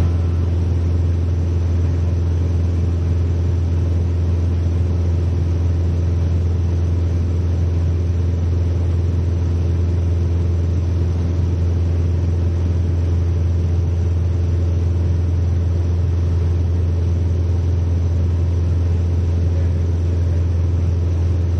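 Steady drone of a Mooney single-engine piston airplane at cruise power, heard inside the cabin: engine and propeller noise with a strong, deep, unbroken hum.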